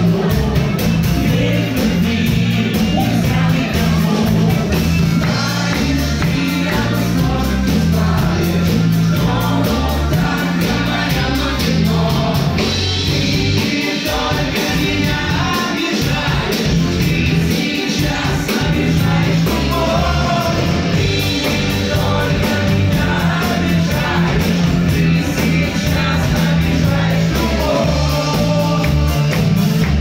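Live band playing a song with singing, over bass guitar, drum kit and keyboard; loud and steady throughout.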